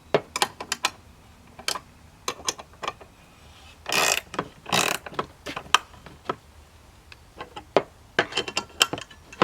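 Ratchet wrench tightening the hex nuts on an edging mill's frame: irregular clicking strokes, with two longer runs of rapid ratcheting about four and five seconds in.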